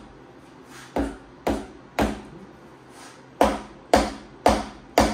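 Seven sharp mallet blows on the cast-iron engine block and cylinder head, about half a second apart, in a run of three and then a run of four. The blows are meant to break the rust and free the stuck cylinder head.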